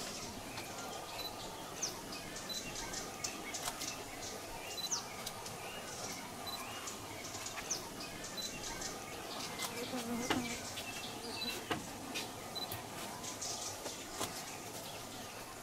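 Rainforest ambience: birds calling with many short high chirps and brief whistles over a steady insect hum, with one short low sound about ten seconds in.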